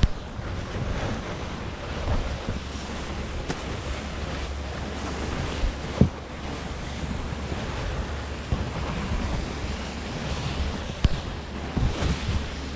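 Wind noise on the microphone and a steady low rumble as a snow tube is towed up a tubing-hill lift lane, with a few sharp knocks about halfway and near the end.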